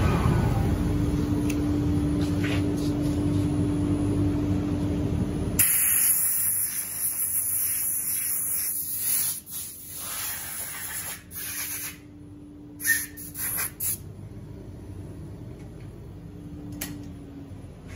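Steady workshop machine noise with a low hum, then, about five seconds in, a compressed-air blow gun hissing in bursts at a freshly bored hole in the cedar slab, dying away after a few seconds.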